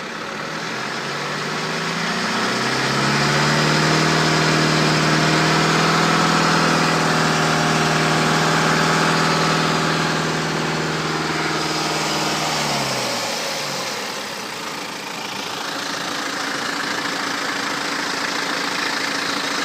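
BMW 320d's N47 four-cylinder diesel engine revved up from idle about two seconds in, held at a steady higher speed for about ten seconds, then let fall back to idle. The owner wonders whether the noise is the original timing chain, never replaced at almost 180k.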